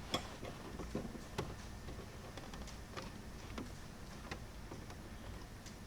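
Faint, irregular clicks and taps of hands working the rubber upper shifter boot into place over the gear shifter.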